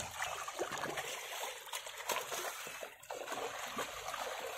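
Irregular water splashing and sloshing as a drag net is hauled by hand through shallow pond water by wading men, with fish splashing in the net.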